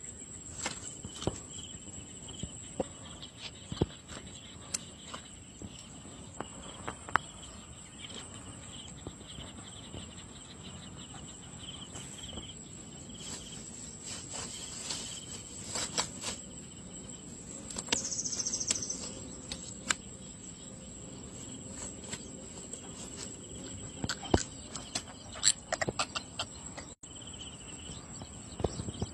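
Insects shrilling steadily in the background in one unbroken high tone. Over it come irregular sharp clicks and knocks as a freshly caught wallago catfish is unhooked and handled on the grass.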